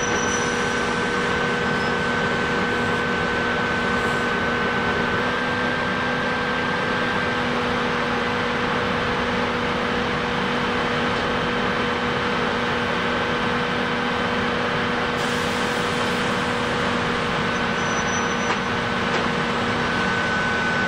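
Electric train of the Ichibata Electric Railway standing at the station, its onboard equipment and fans giving a steady hum with a few held tones over a constant hiss.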